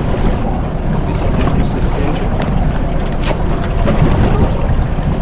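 Steady wind buffeting the microphone on a small boat at sea, with the rumble of water around the hull.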